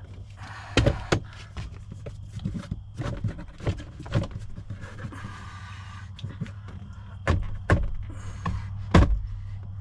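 Hard plastic interior trim panels knocking and clicking as they are pushed and tapped, trying to make them snap in and line up, with a person's heavy breathing between the knocks.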